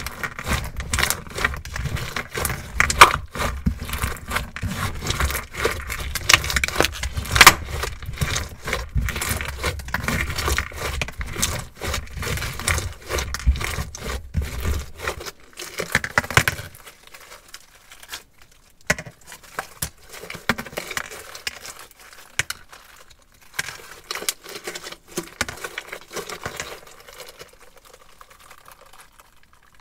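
Hands squeezing and kneading crunchy slime: a dense run of crackling pops and squelches. About halfway through the crackling thins out to sparser, quieter pops.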